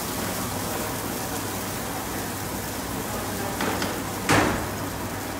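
Sliced onions sizzling in oil in a nonstick frying pan, being stirred with a spatula; the spatula knocks against the pan twice near the end, the second knock the louder.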